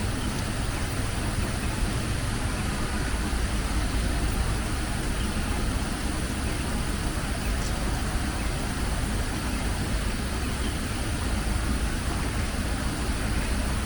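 Steady rushing of a river's flowing water, an even, unbroken noise with a strong low rumble.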